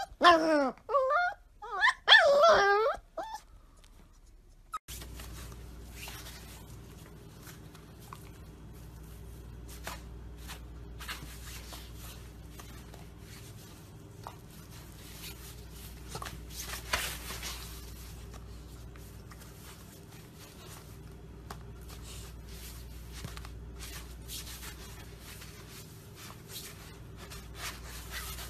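Golden retriever puppy whining in high, wavering cries for about three seconds. After that only a steady low hum with scattered soft clicks and rustles.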